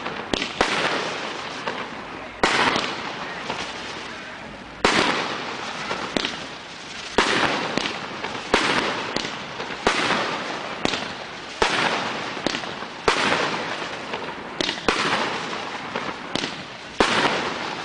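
Fireworks display: shells bursting with a sharp bang about every one to two seconds, each followed by a crackling, hissing tail that fades out.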